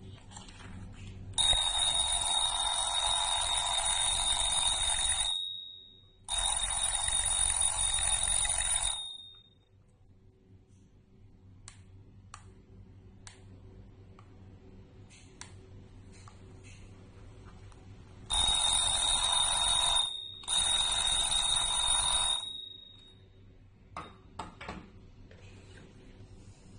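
An alarm clock ringing in four loud bursts: two of about three to four seconds, then a pause of about ten seconds, then two shorter ones of about two seconds. Its bell tone lingers briefly after each burst cuts off. A few faint clicks fall in the gaps.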